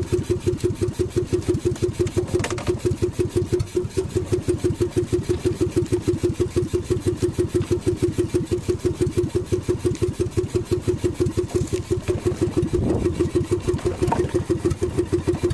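Small boat engine of an outrigger bangka running steadily, an even putt-putt of about six beats a second.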